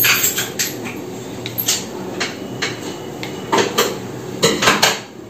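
Small household objects knocking and clicking as they are picked up, wiped with a cloth and set back down on a wooden cabinet top during dusting, with a louder cluster of knocks near the end.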